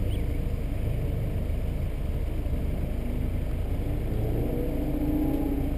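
Car engine running at idle with a steady low sound. From about four seconds in, an engine note grows louder and rises a little in pitch.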